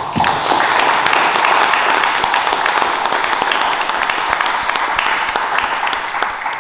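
Small audience applauding: dense hand clapping that starts suddenly, holds steady and eases off near the end.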